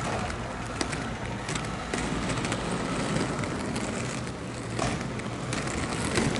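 Roller skate wheels rolling over a rough street surface: a steady rumbling noise with scattered clicks.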